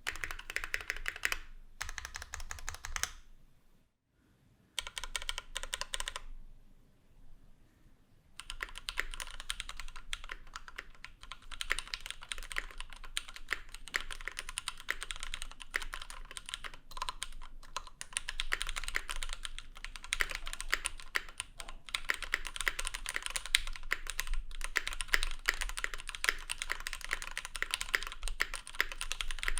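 Typing on a Keychron Q1 aluminium-plate mechanical keyboard with Gateron Phantom Brown switches and ABS keycaps: rapid keystrokes in short bursts with a couple of brief pauses, then a steady run of fast typing from about eight seconds in. The later typing is with all the plate gaskets installed.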